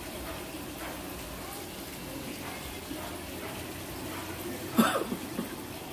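Quiet room tone, then near the end a person's sudden sharp cough, followed by a few short throaty sounds, a splutter as if at a strong taste.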